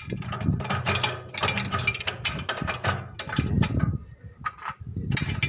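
Rapid metallic clicking and rattling of a hand tool undoing the nuts that hold a petrol generator's fuel tank, in short runs with a brief pause about four seconds in.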